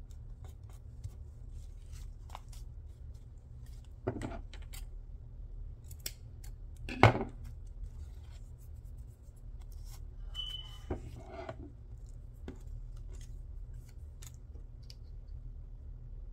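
Scissors being handled on a craft table, with small clicks and paper or fabric rustling, and one sharp knock about seven seconds in, the loudest sound. A low steady hum runs underneath.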